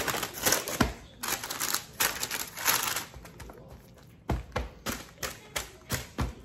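Hands rubbing a dry rub into raw baby back ribs on paper: rustling and crinkling strokes, then in the second half a quick run of short pats of a palm on the meat, about three a second.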